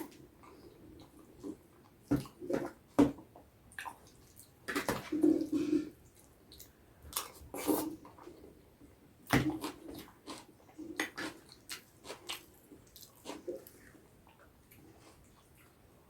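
Close-miked eating by hand: irregular wet chewing and slurping sounds with a few sharp clicks, in uneven bursts with short pauses between them.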